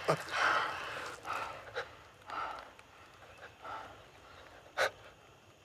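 A person's heavy, ragged breaths, one after another and growing fainter, with a single sharp click nearly five seconds in.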